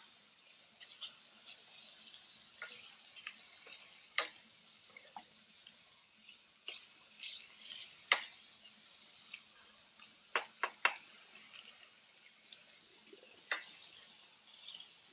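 Spinach, garlic and artichoke hearts sizzling in a frying pan, a steady hiss broken by scattered sharp clicks and knocks, the loudest about eight seconds in and a quick cluster of three a couple of seconds later.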